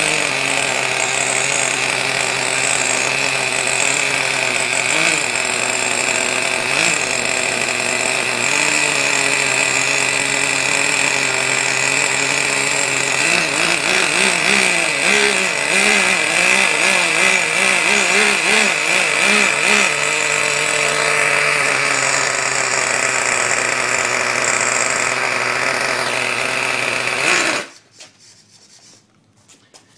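Small two-stroke glow-fuel (nitro) engine of a radio-controlled buggy running steadily, with its pitch wavering up and down for several seconds in the middle. It cuts off suddenly near the end.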